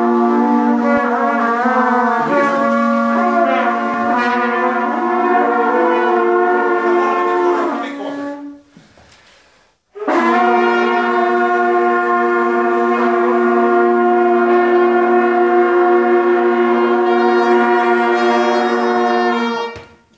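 Several brass hunting horns blown together by beginners, sounding several notes at once. A phrase of held and changing notes runs for about eight seconds, then comes a short break, then one long sustained chord lasting about ten seconds that stops just before the end.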